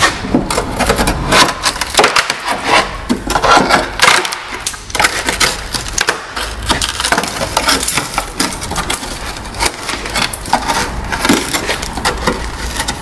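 Rusty outer sill panel of a Mk1 Mazda MX-5 being prised and pulled away from the inner sill, with thick body filler cracking and crunching and corroded metal scraping and creaking in a dense, irregular crackle. The sill was a bodged repair held mostly by filler.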